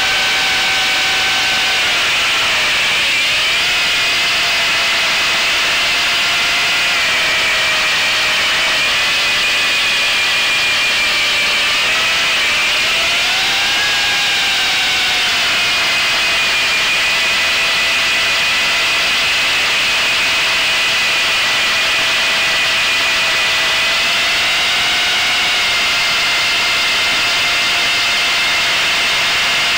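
Onboard sound of a model aircraft's motors and propellers: a steady buzzing whine whose pitch dips and rises a little with throttle, a few times, over rushing air noise.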